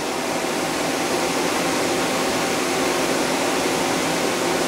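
Steady mechanical hum and whoosh of running shop machinery, with a faint low drone underneath.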